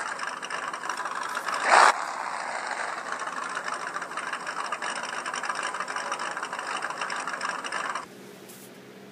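Stock-car engines running just after firing up, a steady rough engine noise with a brief louder burst about two seconds in; it cuts off suddenly about a second before the end.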